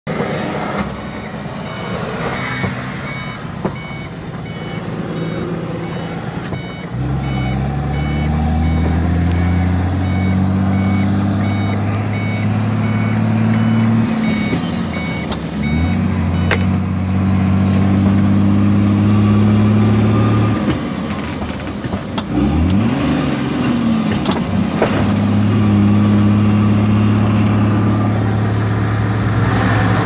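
A truck's engine heard from inside the cab while driving, its note climbing, dropping and climbing again several times as it works through the gears. For roughly the first half a repeated electronic beeping sounds alongside it.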